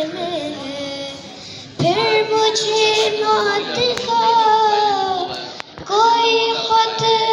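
A young boy singing a naat, an Urdu devotional hymn in praise of the Prophet, in long held notes that waver in pitch. He starts softly, swells suddenly louder about two seconds in, and breaks off briefly before taking up a loud note again near the end.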